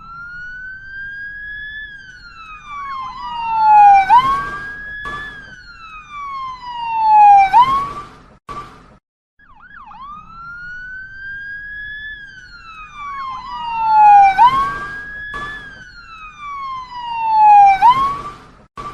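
Ambulance siren sound effect wailing, its pitch gliding slowly up and then down, swelling to loud peaks. It breaks off briefly about halfway and the same sequence starts again.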